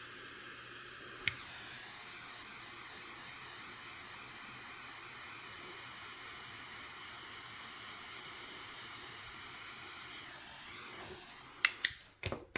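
Steady hiss of a small blower running, with a few sharp clicks near the end just before it cuts off suddenly.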